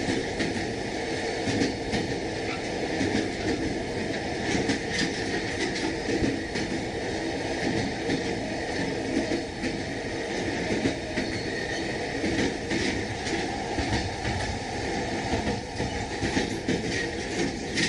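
Passenger train carriage running along the rails, heard from inside: a steady rumble with the clack of the wheels over rail joints.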